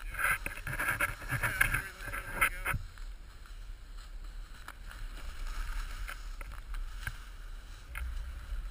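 Snow swishing and spraying as a rider turns down a powder slope, with wind rushing over the action camera's microphone. For the first few seconds it is a loud, irregular crunching spray, then it settles into a steadier hiss.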